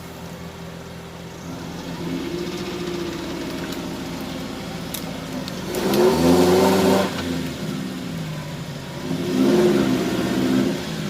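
Off-road 4x4 engine running under load and revving hard twice, about six and nine and a half seconds in, with the pitch rising and falling on each rev.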